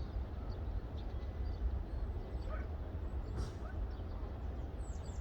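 Outdoor ambience: a steady low rumble with scattered faint, short bird chirps.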